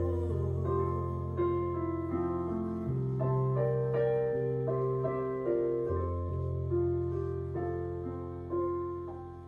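Piano accompaniment of a slow ballad playing on after the vocal has ended: slow chords over low bass notes changing about every three seconds, the sound dying away near the end.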